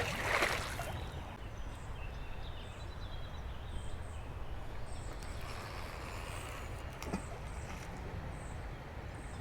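A brief splash of water at the start, then steady outdoor river ambience: a low rumble with faint, high, short bird chirps dotted through it.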